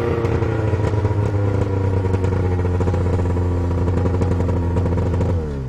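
Engine running steadily at one high speed, then its pitch drops away just before the end.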